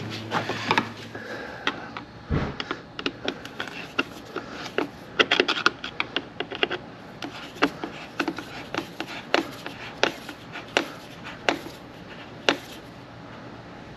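Flathead screwdriver turning the screw of a worm-drive hose clamp to tighten it: a string of sharp, irregular clicks, about one or two a second, with a single thump about two seconds in.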